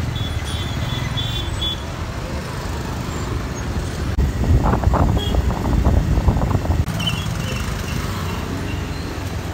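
A motorcycle riding through city traffic, heard from the rider's seat: a steady low engine and road rumble with the noise of surrounding vehicles. The rumble gets a little louder about four seconds in.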